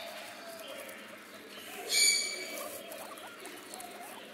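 A guinea pig squeaks once, about two seconds in: a short, high-pitched call.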